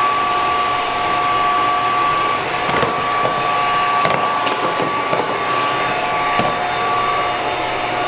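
Kalorik robot vacuum running on a hard floor, loud: a steady suction-fan hiss carrying two steady high whining tones, with a few light clicks as it moves.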